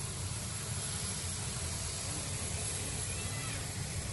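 Jet engines of a Boeing 737 cargo jet running as it rolls along the runway: a steady rushing noise over a low rumble.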